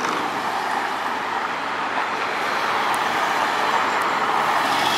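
City street traffic: tyre and engine noise of cars driving past, growing slightly louder toward the end.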